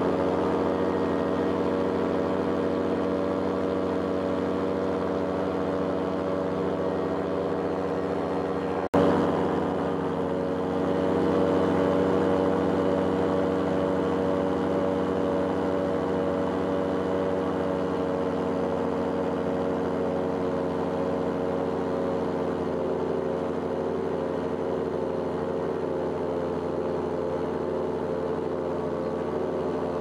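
Paramotor engine and propeller running steadily in flight, with a short break about nine seconds in, after which it runs slightly louder.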